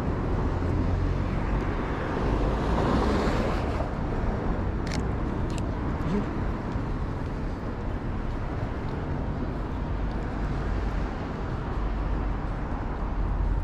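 City street traffic noise with a steady low rumble; a vehicle passes about two to three seconds in, and two short clicks come about five seconds in.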